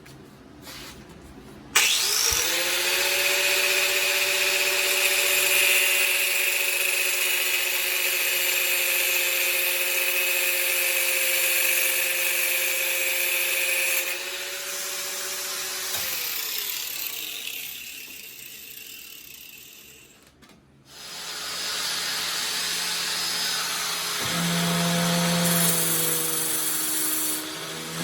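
A power tool cutting a piece of metal tube: the motor starts abruptly with a steady whine and a harsh hiss, then winds down with falling pitch. After a short pause it starts again, its pitch shifting under load near the end.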